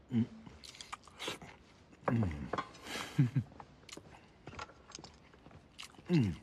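A man's short wordless murmurs, each falling in pitch, come about four times while eating at a banquet table, with small clicks and taps of chopsticks and tableware between them.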